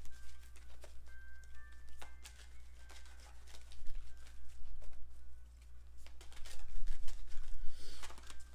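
Faint background music with scattered soft clicks of oracle cards being handled and shuffled, and a louder rustle of the cards near the end.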